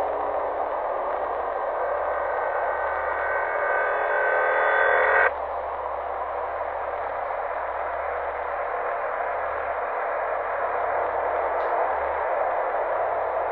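Steady static-like hiss over a low hum. Several high ringing tones build in loudness and cut off abruptly about five seconds in.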